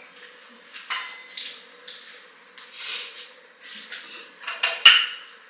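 Dishes and cutlery clinking and clattering as they are handled, a string of short irregular knocks with the sharpest one near the end.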